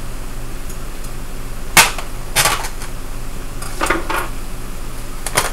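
Sharp knocks and clatter of kitchen items being picked up and handled at the counter, with the loudest knock about two seconds in and a few lighter ones after it.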